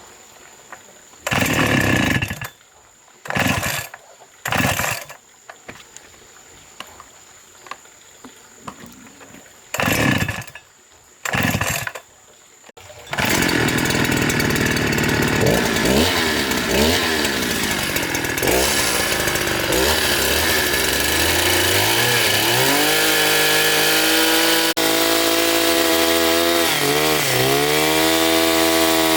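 Two-stroke chainsaw giving several short bursts in the first half before it keeps running about 13 seconds in, then running continuously with its revs rising and falling.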